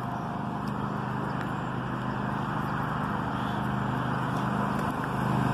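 A motor vehicle's engine running with a steady low hum that slowly grows louder toward the end.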